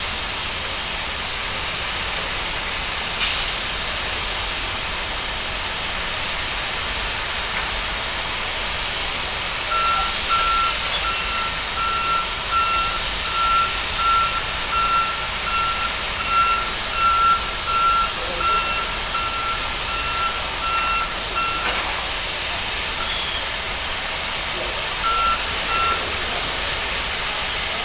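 Warning beeper on an airport cargo loader sounding a steady run of high beeps, a little faster than one a second, for about twelve seconds while the loader platform carries a freight container, with two more beeps near the end. The beeps signal that the loader is moving. Under them runs a steady hum of ground machinery.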